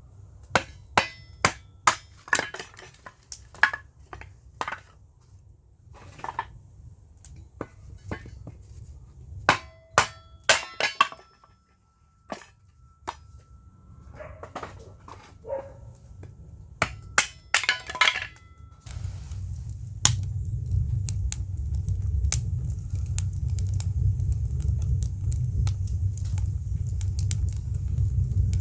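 Repeated sharp hammer strikes knocking pieces of firewood down onto the upturned blade of a homemade kindling splitter, splitting off small kindling, in quick clusters of knocks with short pauses. About two-thirds of the way in the knocking stops and a steady low rumble takes over.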